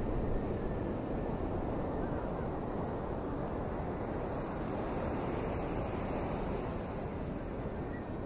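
Hurricane wind and surf making a steady rushing noise, with wind buffeting the microphone.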